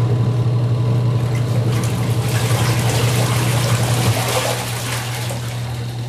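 Midea twin-tub washing machine's wash motor starting and running with a steady low hum, its pulsator churning water and clothes in the wash tub on the final rinse. The splashing grows louder about two seconds in.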